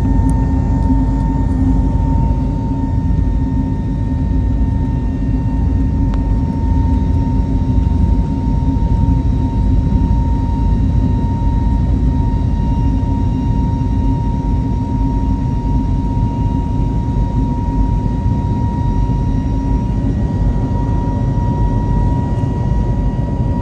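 Jet airliner cabin noise in flight: a steady roar of engines and airflow with a steady high whine over it.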